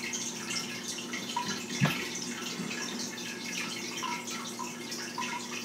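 Faint scratching of drawing on paper, over a steady low hum, with one light tap about two seconds in.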